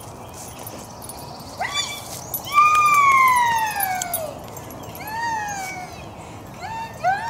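West Highland white terrier whining in a series of high, falling whines: a long loud one near the middle, a shorter one after it, and a few quick short ones near the end.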